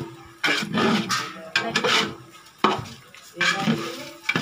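A metal ladle stirring and scraping chicken biryani rice against the sides of a large metal pot, in about four strokes, roughly one a second.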